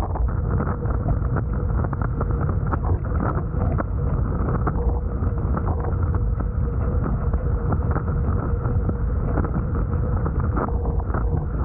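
Wind buffeting the microphone of a Hobie Tiger F18 catamaran sailing fast, with water rushing and splashing past the hulls. A faint steady hum comes in about halfway through.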